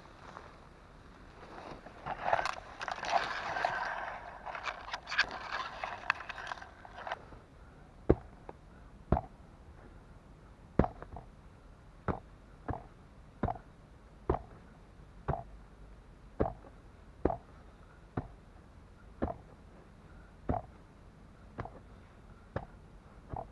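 Rustling through leaves and undergrowth for a few seconds, then a hand hoe chopping into the ground to loosen the earth, one dull strike about every second.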